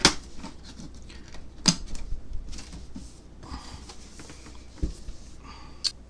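Cardboard packaging being handled as a box is pulled off a moulded paper-pulp insert: a few sharp clicks and knocks, one duller thump near the end, and short scraping rustles of cardboard.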